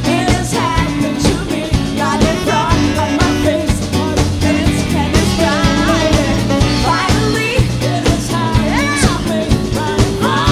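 Live funk and soul band playing a song, with a woman singing lead over a steady drum beat, bass and keyboards.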